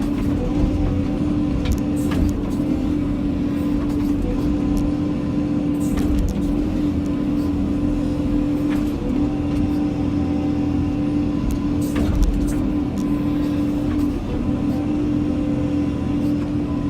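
Cat 320 excavator's diesel engine and hydraulics running steadily under work, a constant hum over a low rumble, with scattered short knocks and rattles.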